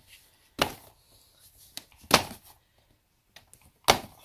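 Sharp plastic clicks and snaps as the clipped-in plastic pleat spacers of an Aprilaire 201 fanfold furnace filter are pried loose: three loud ones about one and a half seconds apart, with fainter ticks between.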